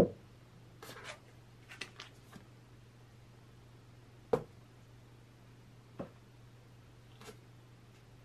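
A glass bottle set down on a tabletop with a sharp knock, followed by the crinkle of a plastic food pouch being handled and two more knocks as packaged items are placed on the table.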